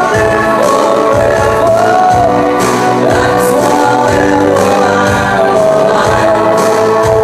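Live band music: a singer's voice through a microphone over keyboard and a steady beat.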